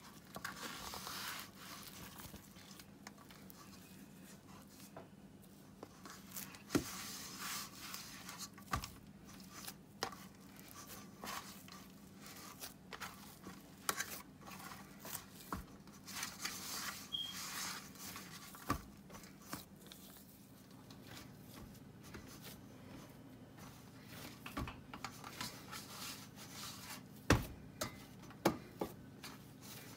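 Kitchen handling sounds: a spoon scraping through curry and rice on a plate, then hands kneading flour dough in a steel bowl. Scattered sharp clicks and knocks run over a faint steady hum, the loudest knock a little before the end.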